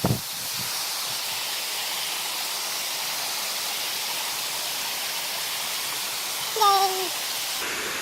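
Steady rush of water from a small waterfall and creek cascade. A low thump comes right at the start, and a brief voice near the end.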